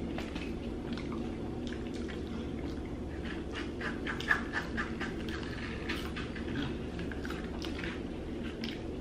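Close-up mouth sounds of people eating mac and cheese: chewing and wet lip smacking, with scattered sharp clicks, the loudest about four seconds in, over a steady low hum.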